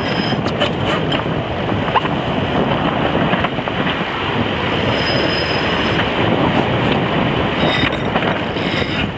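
Steady rush of strong wind buffeting the microphone and water rushing along the hull of a sailing yacht heeled over and sailing hard, with a few light clicks.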